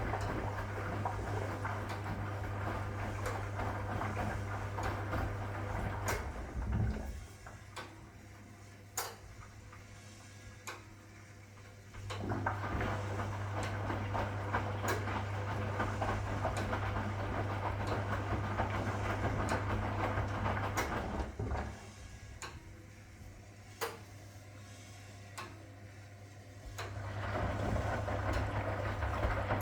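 1961 AEG Lavamat Noris washing machine running its drum: the motor runs with a steady hum, stops twice for about five seconds, and starts again each time, the drum tumbling in bursts with pauses between. Light clicks and knocks are heard, mostly during the pauses.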